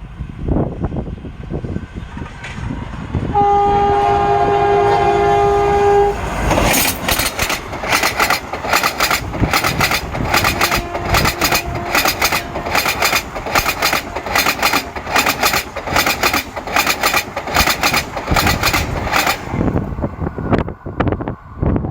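Train horn sounding for about three seconds. The train then crosses a small rail bridge with a loud, fast, evenly repeating clatter of wheels striking the track for about thirteen seconds, with a second, fainter horn partway through, before the clatter stops.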